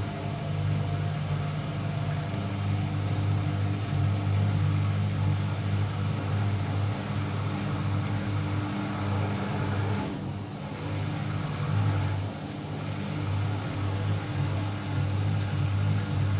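Beko washing machine on its final spin cycle, the drum and motor running with a steady hum. The hum dips briefly twice, about two-thirds of the way in.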